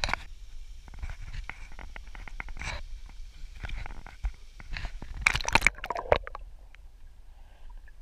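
Water splashing and lapping around a camera held at the water's surface as a man swims, with a flurry of louder splashes about five seconds in.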